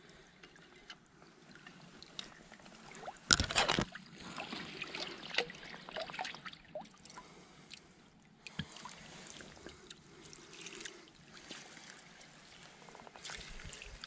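Bare feet wading in a shallow, stony creek: faint water trickling and splashing, with scattered small knocks of stones and one louder burst of sound about three and a half seconds in.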